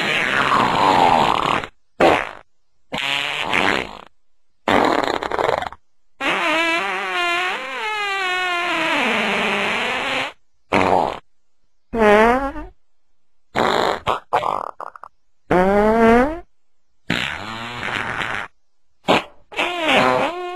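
A string of about a dozen short, loud blasts, each with a buzzy pitch that wavers and slides up and down, cut apart by dead silence. The longest blast runs about four seconds near the middle.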